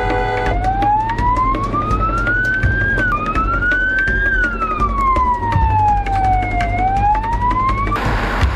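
Emergency-vehicle siren wailing: a single tone sweeping slowly up and down, each rise or fall taking a few seconds, over a low engine rumble. It takes over from a steady chord-like tone about half a second in, and gives way to a rushing noise near the end.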